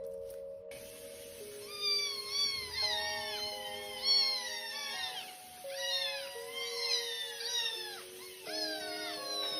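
Cat meowing over and over in short, high-pitched calls that fall in pitch, about two a second, starting a couple of seconds in. Background music with held chords plays under it.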